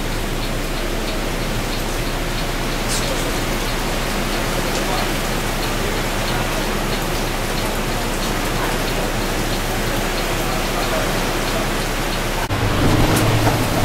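Heavy tropical rain drumming on a bus's windscreen and roof, a steady hiss of water heard from inside the cab. Near the end the sound cuts to a louder passage with a low hum.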